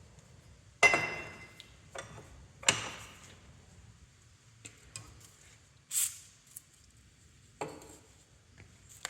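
A few separate metallic clanks and knocks from steel plate and tools being moved about. The loudest, about a second in, rings briefly; there is no drilling.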